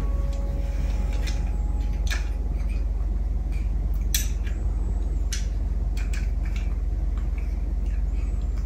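Light scattered clicks and taps of a small plastic thermometer being handled by a baby monkey, over a steady low hum.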